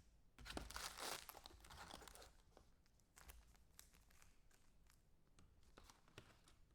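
Faint tearing and crinkling of a trading-card pack wrapper being opened, followed by scattered light clicks of cards being handled.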